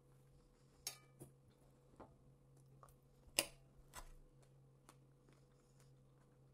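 Metal fork clicking and scraping against a ceramic plate, a handful of short sharp taps with one louder clink about three and a half seconds in, over a faint steady hum.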